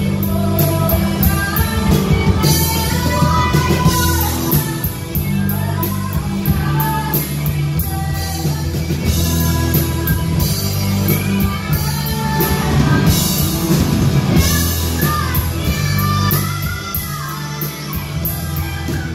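Live rock band playing loudly, a singer over a drum kit that keeps a steady beat with cymbal strokes.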